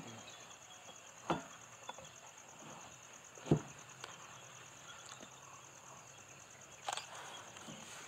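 Insects chirring with a steady, high, pulsing buzz that sounds faint. A few dull knocks cut across it, the loudest about three and a half seconds in.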